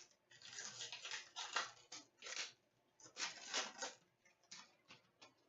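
Trading cards rustling and sliding against each other as they are handled, in a series of short scraping swishes.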